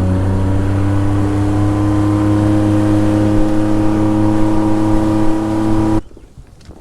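Boat's outboard motor running at a steady high speed after throttling up. It cuts off suddenly about six seconds in.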